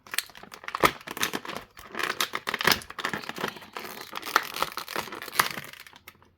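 Plastic packaging crinkling and tearing in a dense run of sharp crackles as an action figure is pulled free of it; it stops shortly before the end.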